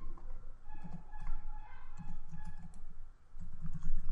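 Typing on a computer keyboard: a run of irregular key clicks, with a brief pause a little after three seconds in.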